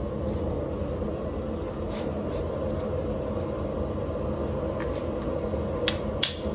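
Forge running with a steady rumbling hiss while steel heats for hardening, with a couple of light metal clinks near the end.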